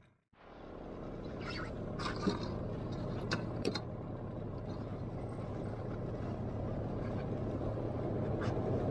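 A boat motor running steadily, its low rumble fading in after a brief dropout and slowly growing louder, with a few light knocks and clicks.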